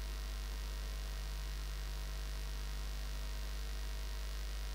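Steady low electrical mains hum, unchanging, with no other sound over it.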